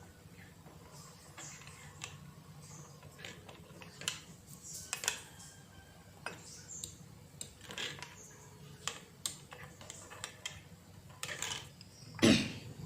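Scattered clinks and light knocks of a spoon against a cup or glass as coffee is spooned in and stirred, over a steady low hum. A louder knock comes near the end.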